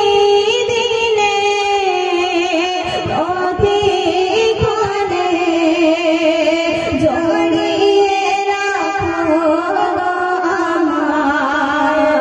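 A woman singing a Bengali Islamic gojol (devotional song) into a hand-held microphone, her voice amplified, holding and sliding through long melodic notes.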